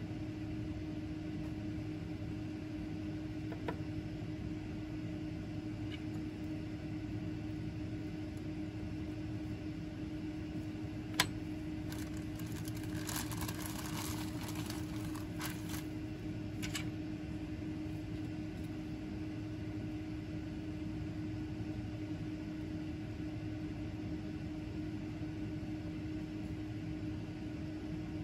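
Steady mechanical hum of room ventilation, with one constant low tone. About eleven seconds in comes a single sharp click of a tool set down on the bench, followed by a few seconds of light plastic-bag crinkling as a gloved hand handles a bag of food.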